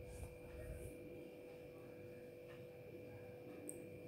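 Faint steady hum over a low rumble, close to room tone, with a few soft ticks.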